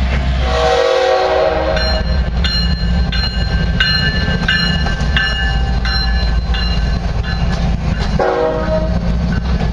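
Diesel-electric freight locomotives running light, passing close with a steady engine rumble. Two horn blasts of about a second each, one near the start and one near the end, with a bell ringing in quick even strokes between them.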